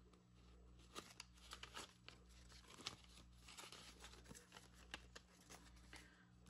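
Faint rustling and crinkling of paper banknotes being counted and shuffled by hand: a scatter of soft, short paper ticks over a low steady hum.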